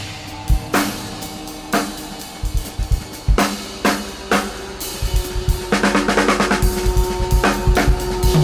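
Drum kit played freely: scattered bass drum, snare and cymbal hits that turn into a busier flurry a little past halfway. A steady held tone sounds underneath.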